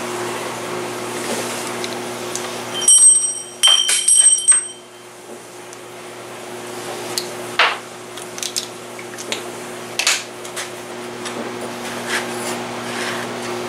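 Steel clinking against a bench vise: a quick cluster of sharp, ringing metallic clinks about three seconds in, then scattered lighter knocks and taps as the steel plate is handled in the vise jaws.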